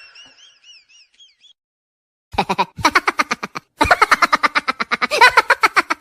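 Cartoon comedy sound effects: a warbling, wobbling boing tone that fades out, then after a short pause a fast chattering run of short pitched pulses, several a second.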